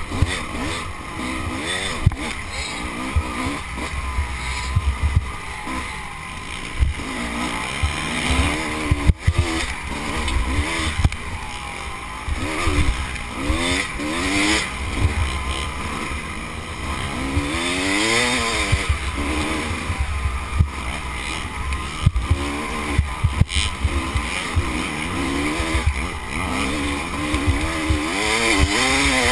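Dirt bike engine revving up and falling back again and again as the rider works the throttle and shifts on rough, climbing ground. Wind buffets the microphone, and sharp knocks come from the bike jolting over rocks.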